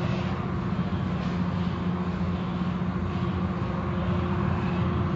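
Car wash machinery running steadily: a constant low hum over an even hiss.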